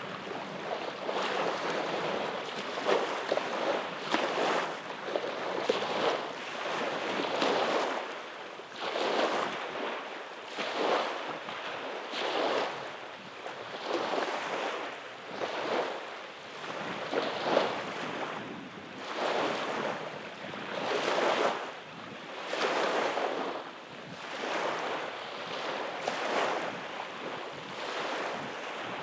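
Small, calm waves breaking and washing up a sandy beach in a steady rhythm, one swell of surf about every one and a half to two seconds.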